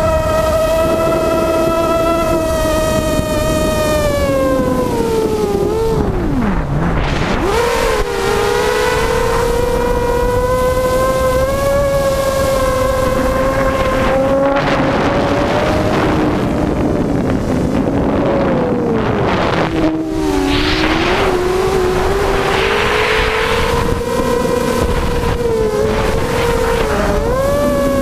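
A hexacopter's six Tiger MN1806 2300kv brushless motors spin 5x3 two-blade propellers in a steady whine. About six seconds in the pitch dives steeply as the throttle comes off, then climbs back, with another shorter dip later. Gusts of wind noise buffet the onboard camera microphone in patches.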